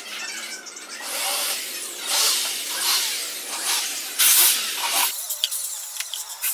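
Corded electric drill boring holes into an MDF board, in about four short bursts as the motor spins up and down.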